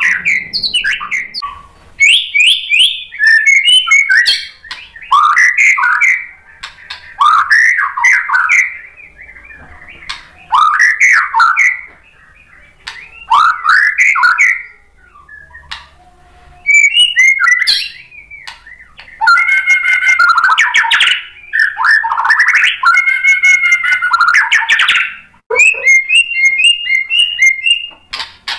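White-rumped shama singing loudly: a string of rising and falling whistled phrases, each a second or two long with short pauses between. Denser, faster passages come past the middle, and a quick run of repeated short notes comes near the end.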